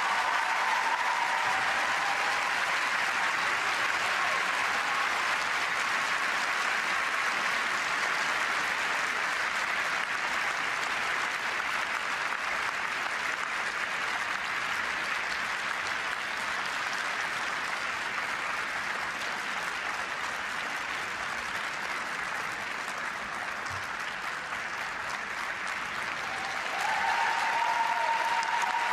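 Audience applauding steadily in an ice arena, the clapping easing a little past the middle and swelling again near the end.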